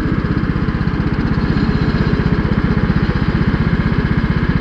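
Lawn mower engine running steadily at an even pace, with a close, regular firing pulse.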